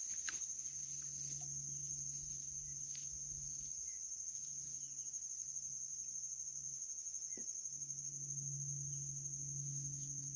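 Steady high-pitched insect chorus in two even tones, with a low hum that fades in and out underneath.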